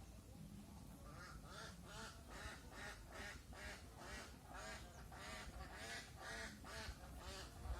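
Short animal calls repeated quickly, about two or three a second, several overlapping.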